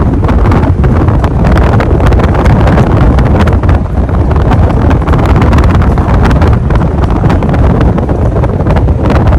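Downdraft from a running 52-inch Gulf Coast Tiara ceiling fan buffeting the microphone: a loud, steady wind rumble with a constant flutter.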